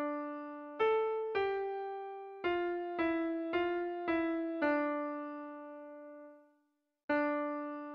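Keyboard music in an electric-piano sound: a simple melody of single notes, each struck and left to fade. Eight notes play, the sound dies out briefly, and the phrase starts again about seven seconds in.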